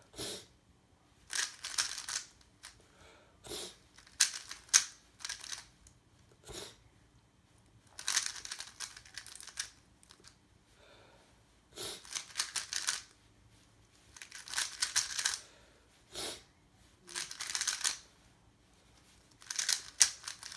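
Plastic 3x3 speedcube being turned fast by hand: bursts of rapid clicking layer turns, each up to about a second and a half long, broken by short pauses.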